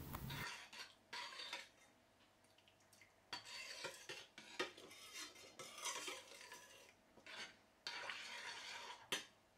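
Metal spoon stirring thin orange sauce in a stainless steel pan, faint, in several short spells of scraping with a few clinks of spoon on pan between brief pauses.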